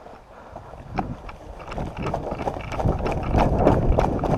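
Running footsteps with wind buffeting the microphone, getting louder about two seconds in.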